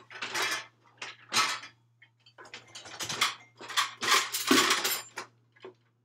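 Dishes, pots and pans clattering against each other and the dishwasher's wire racks as the racks are unloaded, in several separate bursts of rattling.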